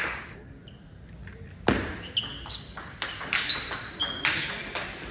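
Table tennis rally: after a short hush, a loud knock opens the point about a second and a half in, then the celluloid ball clicks back and forth off the bats and table about twice a second, each hit with a short high ping.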